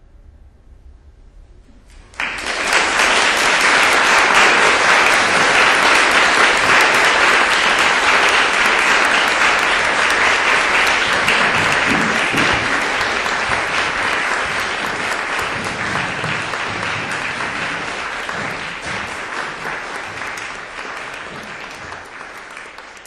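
Audience applauding: the clapping breaks out suddenly about two seconds in and slowly dies away toward the end.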